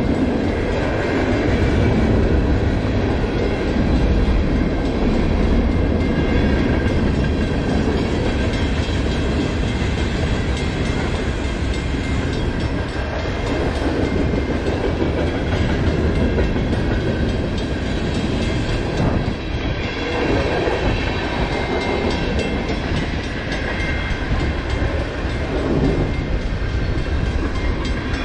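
Freight train of mixed boxcars, tank cars and covered hoppers rolling steadily past, a continuous rumble and rattle of wheels on rail.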